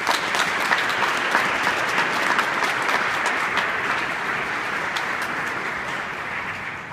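Audience applauding, the clapping fading gradually toward the end.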